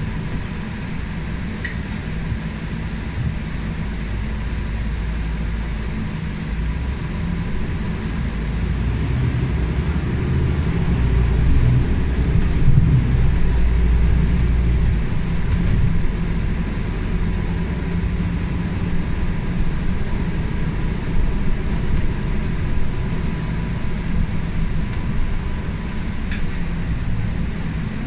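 Cabin noise of a MAN A95 Euro 6 bus under way with its ZF EcoLife six-speed automatic gearbox: a steady low engine and drivetrain rumble with a faint thin whine over it, growing louder about ten seconds in and easing again after about sixteen seconds.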